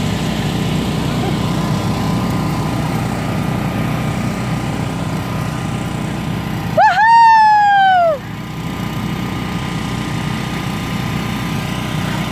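Steady hum of an inflatable slide's electric air blower. About seven seconds in, a loud, high-pitched whoop from a person that rises briefly and then falls away over about a second.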